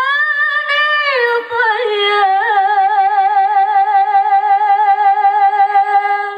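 A female lead singer's voice, amplified through a microphone, sings one long ornamented note in classical qasidah style. It slides down and turns in the first two seconds, then is held with a steady vibrato and stops just before the end.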